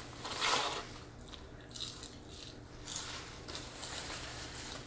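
Paper rustling and crinkling in several short bursts as a paper napkin and a paper fries carton are handled.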